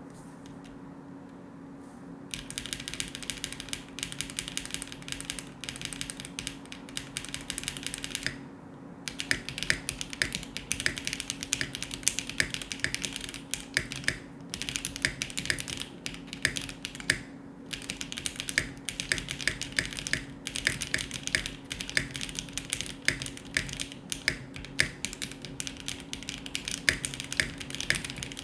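Typing on a Mode Sonnet aluminium custom mechanical keyboard with Akko Jelly Black linear switches and a POM plate: rapid keystrokes begin about two seconds in, with a short pause about a third of the way through. A steady low hum runs underneath.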